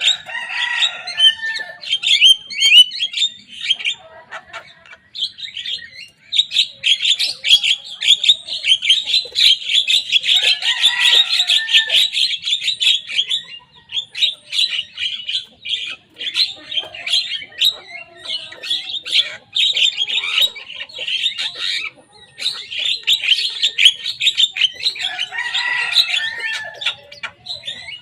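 Young Javan myna singing hard: a dense, unbroken run of rapid chattering chirps and whistles, with lower calls mixed in about a second in, around the middle and near the end.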